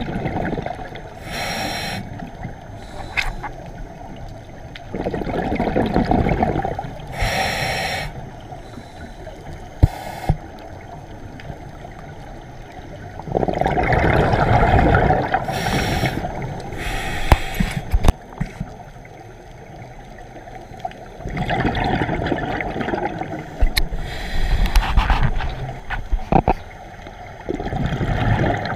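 Scuba regulator breathing heard underwater: short hissing inhalations alternating with long gurgling rushes of exhaled bubbles every several seconds, with a few sharp clicks.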